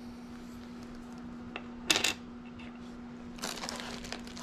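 A small hard resin charm clicks sharply as it is set down, about two seconds in, with a fainter click just before it; a short rustle follows near the end over a faint steady hum.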